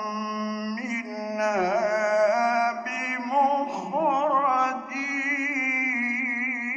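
A man's voice chanting the Quran in the slow, melodic mujawwad style, one long ornamented phrase with trills and wavering pitch. It settles into a long held, wavering note over the last couple of seconds.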